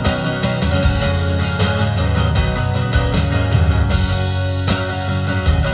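Rock band playing an instrumental passage between vocal lines: guitar over a steady bass and drums.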